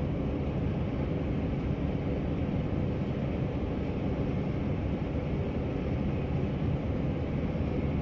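New Holland T7 tractor working under load as it pulls a round baler picking up thick silage, heard from inside the cab: a steady engine and machinery drone with no change in pace.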